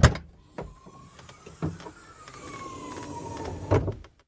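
A sharp, loud thump, then a single siren-like wail that rises quickly and falls slowly, with a few knocks along the way.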